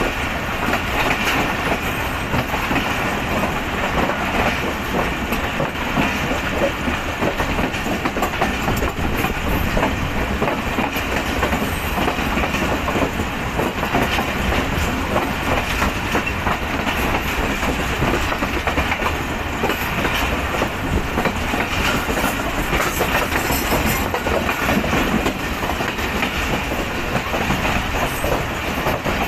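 Passenger train coaches running along the track, heard from an open coach doorway: a steady rumble with a continuous clatter of wheels on the rails.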